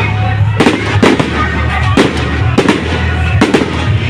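Fireworks display: aerial shells bursting in sharp bangs, roughly two a second at uneven spacing, over music with a steady bass.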